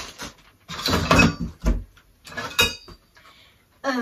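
Painted steel tubes of an IKEA Råskog trolley being handled and lifted out of a cardboard box: a few sudden knocks and rustles, with a short metallic clink that rings briefly about two and a half seconds in.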